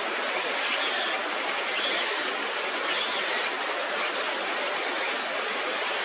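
Steady rushing of a river, an even hiss with no break. A few short, very high chirps come about once a second in the first half.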